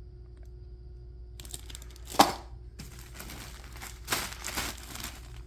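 Plastic wrapping of firework packs crinkling and rustling as they are handled, with one sharp knock about two seconds in.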